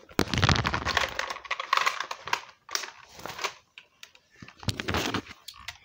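Handling noise: hands rubbing and knocking against the phone's microphone, mixed with clicks and clatter of a plastic action figure being handled. The noise is loudest in the first two seconds or so and comes again briefly about five seconds in.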